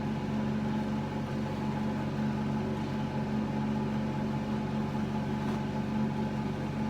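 Air conditioner running with a steady hum and airflow hiss.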